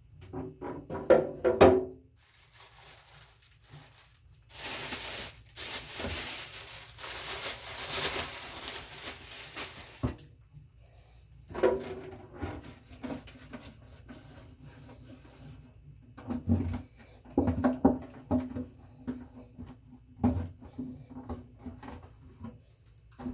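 Household items being handled and set down while a refrigerator is restocked: scattered knocks and clatter, with a steady rustling hiss for about five seconds near the middle.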